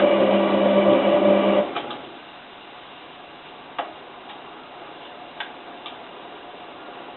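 Hotpoint 9534A washing machine's drum motor turning the drum in a heating-stage tumble, a steady hum that cuts off about one and a half seconds in. A quieter pause follows with a few faint clicks.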